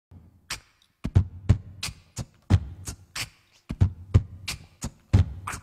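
Beatboxing into a handheld microphone: a steady beat of deep kick-drum thumps and sharp snare and hi-hat sounds made with the mouth, starting about a second in.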